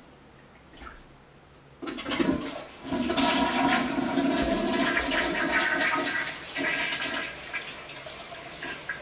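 Toilet flushing: a loud rush of water starts about two seconds in, runs strongly for a few seconds and then fades as the bowl drains and the tank refills.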